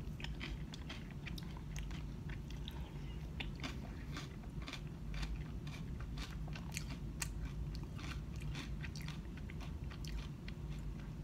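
Close-up chewing of a mouthful of acai bowl: a string of small, irregular crunchy clicks.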